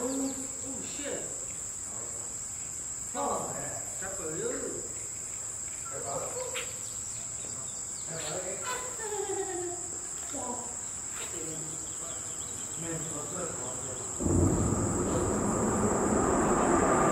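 A steady, high-pitched chorus of insects drones throughout, with faint voices talking now and then. About fourteen seconds in, a loud low rushing noise sets in suddenly and stays under the insects.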